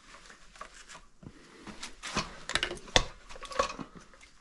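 Metal clicks and clanks from a red lever-operated floor wine corker being handled and its lever worked, with several sharp knocks in the second half.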